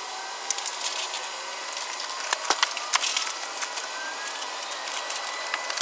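Clicks, knocks and rustling as emergency equipment in an aircraft overhead bin is handled during a pre-flight check, over a steady thin hiss.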